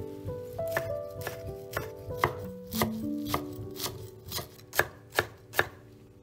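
Chef's knife chopping curly parsley on a wooden cutting board: a steady run of knocks, about two a second, the last three near the end the sharpest.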